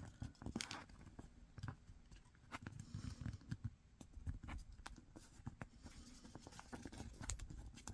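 Sheet of origami paper being handled, unfolded and refolded: faint crinkling rustles and many small clicks as the creases are pressed flat.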